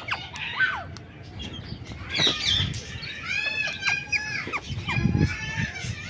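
Rose-ringed parakeets chattering, a run of short, rising-and-falling chirping calls repeated in quick series, with a few sharp clicks among them.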